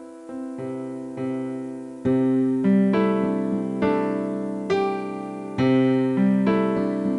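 Background piano music: slow chords and single notes, each struck and left to ring and fade, growing fuller and louder about two seconds in.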